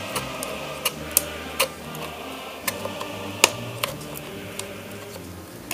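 Russian ammo can opener punching along the sheet-steel lid of a sealed spam can: a series of sharp metallic clicks, irregularly spaced about one to two a second, as the tool jumps along the edge.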